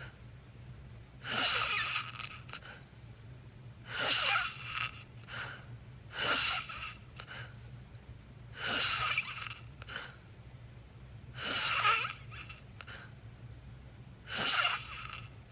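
Wheezy, snoring breaths of a sleeper, one noisy breath about every two and a half seconds.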